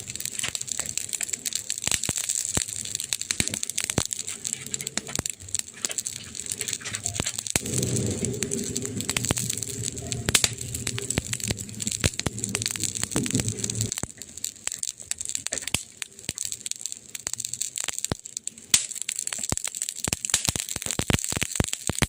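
Wood fire crackling, with dense irregular pops and snaps over a soft high hiss. From about a third of the way in to just past halfway, a low, steady droning sound runs underneath the crackle.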